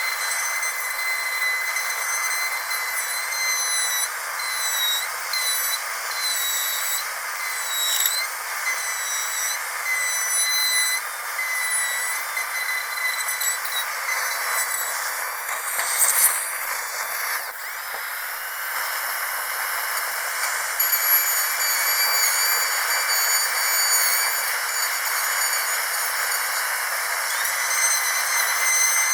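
High-speed dental drill running with a steady high-pitched whine over a continuous hiss, its pitch wavering slightly; a brief scratchy burst a little past halfway.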